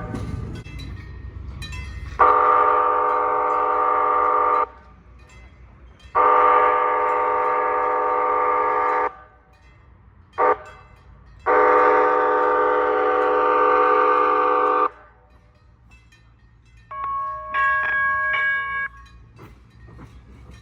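Nippon Sharyo P865 light rail car sounding its E-K5LA horn, a chord of several tones, in the long-long-short-long pattern of a grade-crossing signal. Near the end comes a short chiming of a few higher clipped tones from its electronic gong.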